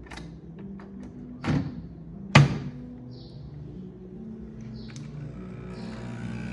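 A capsule coffee machine's lever being worked to load a pod: a short sliding rasp, then a sharp snap as the lever clicks shut about two and a half seconds in. Soft background music plays underneath.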